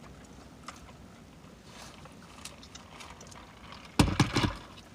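Faint handling and clicking noises, then a brief, loud double bump about four seconds in.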